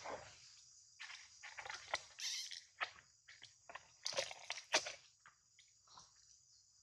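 Steady high-pitched insect drone with irregular short rustling and crunching noises over it, the loudest about four and five seconds in.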